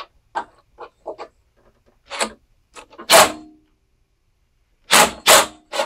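Hand-tool work on the bolts of a small mower engine: light clicks and clinks of a wrench on a half-inch bolt, a louder metal clank with a short ring about three seconds in, and three sharp knocks near the end.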